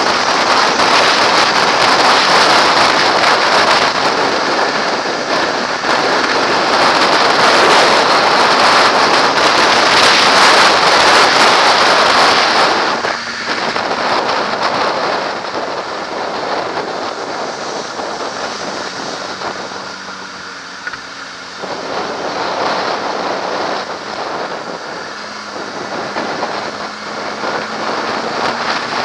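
Wind rushing over a helmet-mounted camera on a 2007–08 Kawasaki ZX-6R at highway speed, with the bike's inline-four engine faint underneath. About halfway through the rush drops sharply as the bike slows among the traffic, and it stays lower to the end.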